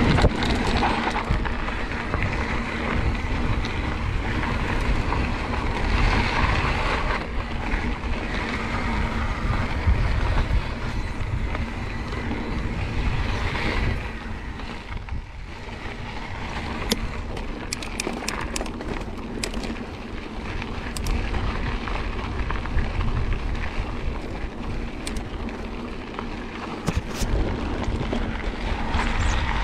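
Wind buffeting the microphone over mountain bike tyres rolling on a dirt singletrack, a steady rumble and hiss, with scattered sharp clicks from the bike in the middle stretch.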